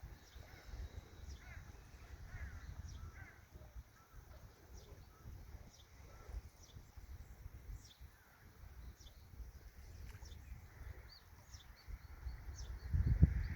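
Small birds chirping, with many short high calls and some lower calls, over a fluctuating low rumble that grows louder near the end.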